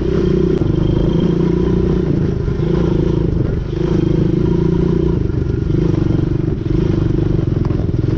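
Quad bike (ATV) engine running at low speed under light throttle, its note rising and falling a little as the rider eases on and off, briefly dropping about three and a half seconds in.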